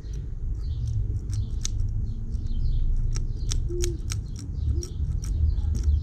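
Bicycle freehub being turned by hand, its pawls giving sharp irregular clicks about two to three times a second; this freehub is faulty and spins both ways. Birds chirp faintly in the background.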